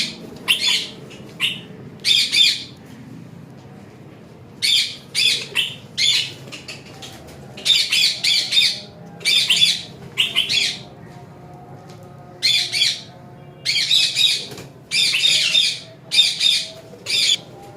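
Rosella parrot squawking: harsh, rasping calls in short bunches of two to four, repeated again and again, the alarm calls of a frightened bird being chased for capture.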